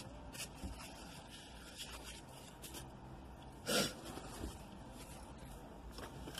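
Faint rustling and small clicks of food packaging being handled over a low, steady car-interior hum. About four seconds in comes one short, loud sniff.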